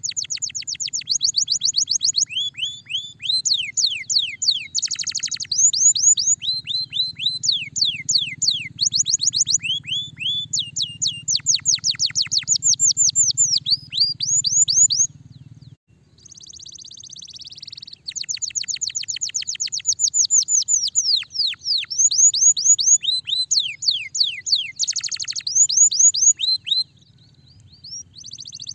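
Canary singing: long rapid trills of repeated falling whistled notes, switching to a new trill every second or two, with a short break about sixteen seconds in and another near the end.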